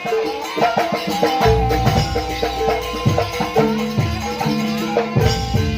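Live East Javanese jaranan music: busy percussion with rapid drum strikes and held melodic tones over it, and a heavy low bass coming in about a second and a half in.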